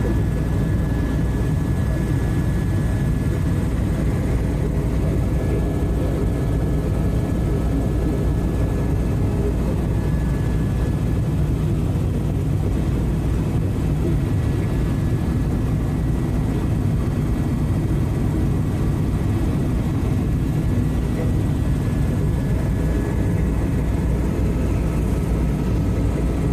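Steady cabin noise of a tour helicopter in flight: a loud, even low drone from the rotor and engine, with a thin steady whine above it.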